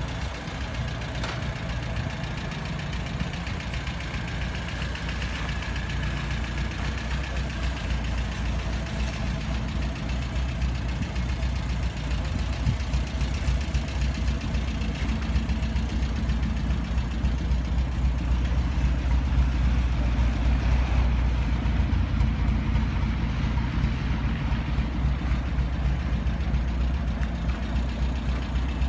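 1969 Volvo 1800's four-cylinder engine idling steadily, a low even rumble that grows a little louder in the second half.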